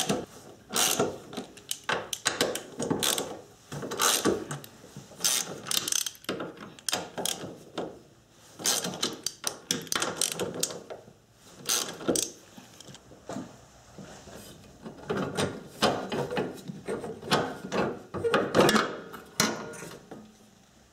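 Hand socket ratchet clicking in repeated runs with short pauses, as the 12 mm fasteners of a strut tower bar are loosened and backed out.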